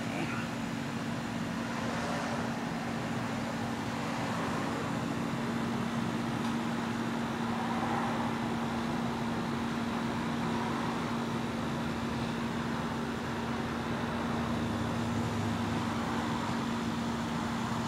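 Steady outdoor background noise with a constant low hum, like a city's ambient drone of distant traffic and machinery.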